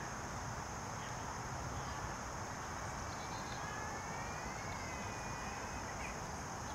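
Steady outdoor background noise: an even hiss with a constant high-pitched drone. A faint wavering tone rises and falls around the middle.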